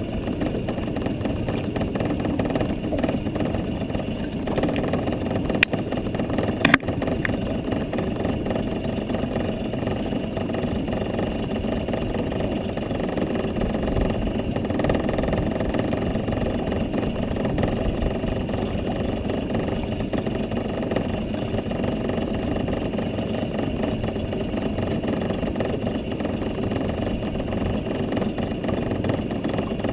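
A boat engine idling with a steady hum, with two sharp clicks about six and seven seconds in.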